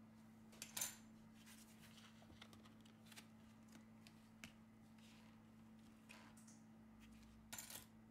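Near silence with a few faint clicks and taps of small plastic parts being handled as the black plastic cover over a Samsung Galaxy S7 Edge's motherboard is lifted off. The loudest click comes about a second in and a short cluster comes near the end, over a low steady hum.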